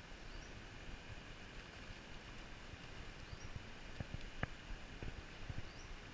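Quiet riverside ambience: a steady hiss of the river, with a few soft knocks from handling the rod, the strongest about halfway through. Three faint short high chirps come about three seconds apart.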